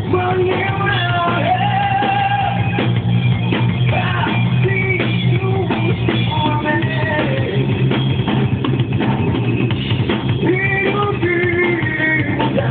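Live rock band playing, with a drum kit keeping a steady beat under electric guitars and a held melody line.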